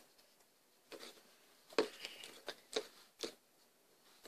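Homemade glue slime being squeezed and pulled apart by hand in a plastic bowl: about six short, faint sticky squelches and crackles, starting about a second in.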